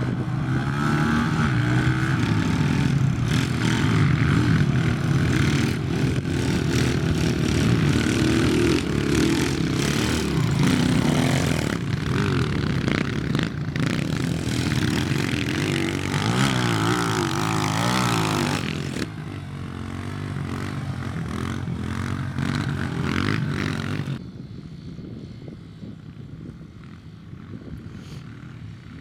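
Small four-stroke single-cylinder pit bike engines revving hard up a hill climb, the pitch rising and falling with throttle and gear changes. The engines drop back about nineteen seconds in and are faint after about twenty-four seconds.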